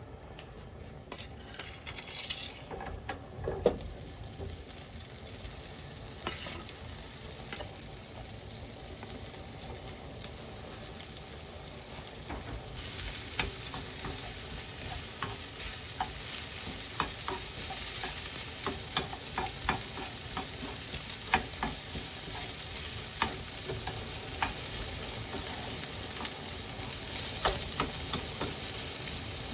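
Egg and Spam fried rice sizzling in a frying pan while a spatula stirs and scrapes it, with scattered clicks of utensil on pan. A few sharper knocks come early, and the sizzling gets suddenly louder about thirteen seconds in, then keeps building.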